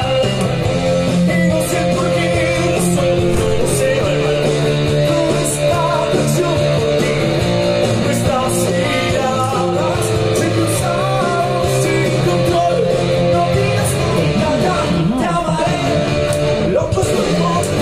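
Electric guitar played through a small portable busking amplifier, with a man singing a rock song into a microphone; the music runs on steadily without a break.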